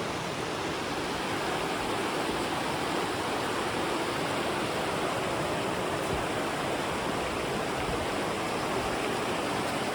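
River water rushing over stones: a steady, even rush that neither starts nor stops.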